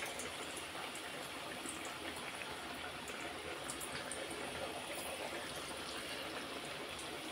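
Hot oil sizzling steadily in a pan as green gram and rice vadas deep-fry, a constant frothy hiss with faint crackle.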